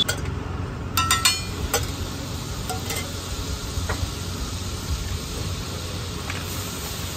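Butter sizzling on a large flat iron tawa griddle, with a few sharp metal clicks and taps of a steel spatula, clustered about a second in.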